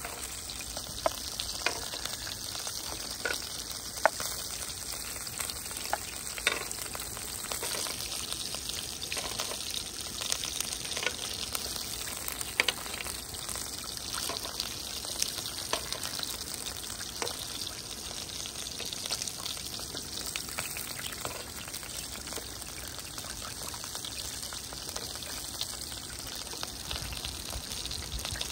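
Slices of beef sizzling on a hot grill pan, a steady hiss with occasional sharp pops of spattering fat.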